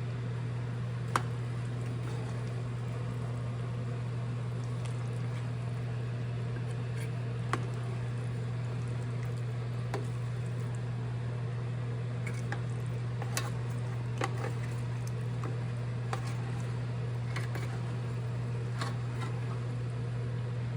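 Chicken cooking in hot oil in a pan: a steady sizzle with scattered spatters and pops, over a steady low hum.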